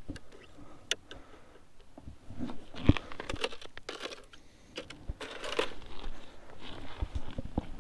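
Irregular crunching footsteps in snow.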